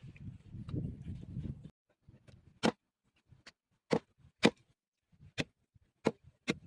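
A series of about seven sharp knocks at uneven intervals, after a brief low rumbling noise in the first second or so.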